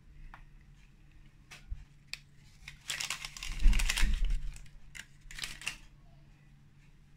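A hand kneading and squishing flour into oily cake batter in a stainless-steel bowl, with soft rustling, scraping and light knocks against the bowl; the busiest stretch comes about three to four seconds in.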